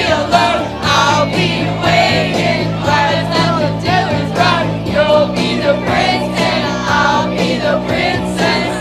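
A group of young voices singing a pop song together over a recorded backing track with steady bass notes.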